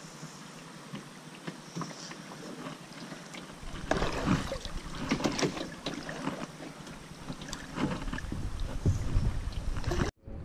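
Paddling a Pelican Trailblazer 100 sit-in plastic kayak: the double-bladed paddle dips and splashes, with water noise along the hull. The first few seconds are soft with light ticks. From about four seconds in come louder, irregular splashes and knocks, and the sound cuts out abruptly just before the end.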